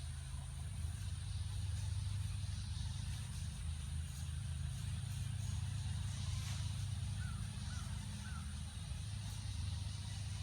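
Muffled low chest sounds of a horse picked up through a stethoscope, a steady dull rumble. A little past the middle, three faint bird chirps.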